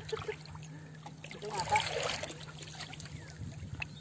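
Water lapping and trickling against the hull of a small paddled outrigger boat, with small splashes and a steady low hum underneath. A faint distant voice is heard about a second and a half in.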